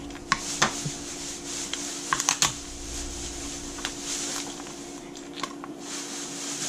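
Scattered sharp clicks and taps of metal tongs and a knife against a plastic cutting board, with rustling crackles as the shell of a cooked slipper lobster is pried apart by hand. A steady low hum runs underneath.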